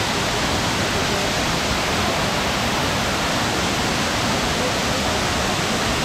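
Several waterfalls spilling down a rock face into a pool, a steady, unbroken rush of falling water.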